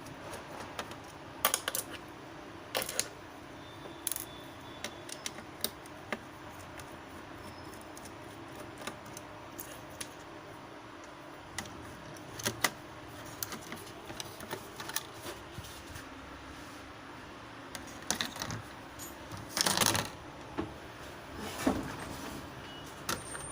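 Irregular light clicks and taps of small hard objects being handled, over a faint steady hum, with a louder short clatter about twenty seconds in.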